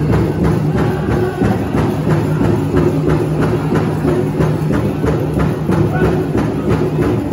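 Powwow drum song: a big drum struck in a steady beat, about three strikes a second, under a group of singers' held voices, accompanying jingle dress dancing.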